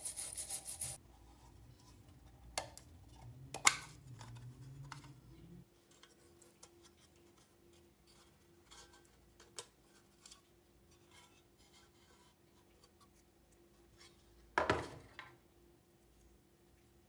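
Rhythmic rasping strokes of hand filing or rubbing on the rusty lamp's metal stop about a second in. Then come scattered small clicks and taps of parts being handled, with a louder metallic knock near four seconds and another near fifteen seconds.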